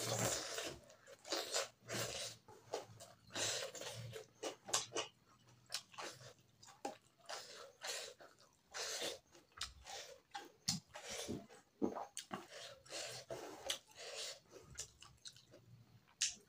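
A person chewing mouthfuls of rice and pork curry eaten by hand, a continuous run of irregular wet chewing and lip-smacking sounds.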